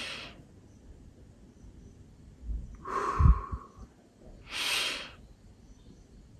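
A man taking slow, deep breaths close to the microphone as a calming breathing exercise: two audible breaths, about 3 s and about 5 s in, the first with a puff of breath against the microphone.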